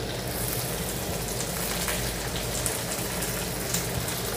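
Mustard oil sizzling steadily in a kadhai with cumin and green chillies frying in it; about a third of a second in the sizzle turns brighter and fuller as sliced onion goes into the hot oil.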